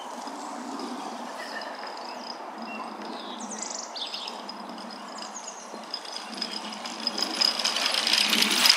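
Small birds giving a few short, falling chirps over a steady outdoor hiss. Near the end a rapid, fine clicking noise swells to loud.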